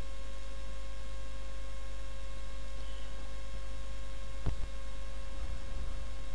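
Steady electrical hum with an even hiss, as from the recording's microphone chain, broken by a single sharp click about four and a half seconds in.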